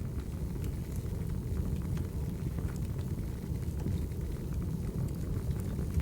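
Wood fire burning: a steady low rumble with scattered sharp crackles and pops.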